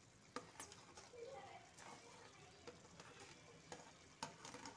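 Faint sizzling of pre-fried vegetables being tipped onto cooked chicken pieces in a hot kadai, with several light clicks and taps of a utensil against the pan, the loudest near the end.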